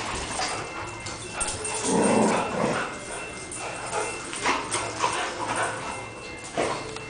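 Dogs at play, giving short scattered barks and whines, with a denser flurry of noise about two seconds in.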